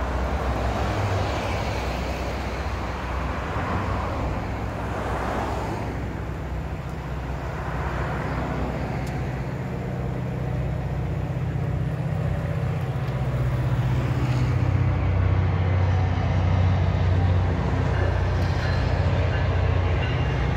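Cars and a truck swishing past on the road in the first few seconds, then a Caltrain diesel commuter train going by, its engine a low steady drone that grows louder about two-thirds of the way in.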